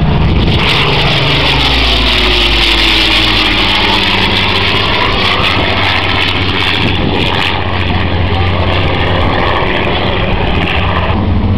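Supermarine Spitfire PR XIX's Rolls-Royce Griffon V12 engine in a low fly-by, loud throughout, its note falling in pitch in the first few seconds as it passes and pulls away.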